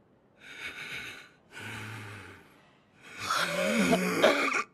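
A young man's heavy, strained breathing in intense concentration: two forced breaths, then a longer, louder groan of effort near the end with a wavering pitch.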